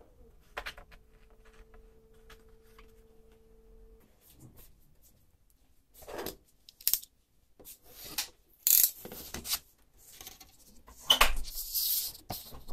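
A plastic film sheet being handled, crinkling and rustling in a run of sharp, irregular bursts that start about halfway through and are loudest near the end. Before that there is only a faint steady hum with a single click.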